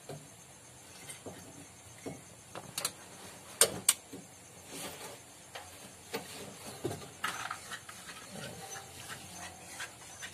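Scattered clicks and knocks of the Bajaj RE auto-rickshaw's plastic handlebar top cover being handled and lifted off, its screws already out. The sharpest clicks come about three and four seconds in.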